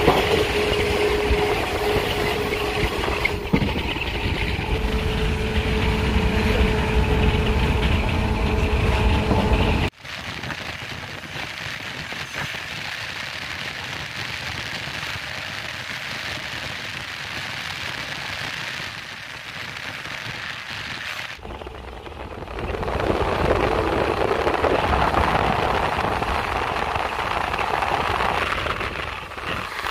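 Wind rush and rolling rail noise through the open window of a moving JNR 185-series train, with a steady hum in the first few seconds while another train runs alongside. The sound cuts off abruptly about a third of the way in to a quieter stretch, then grows louder again past the two-thirds mark.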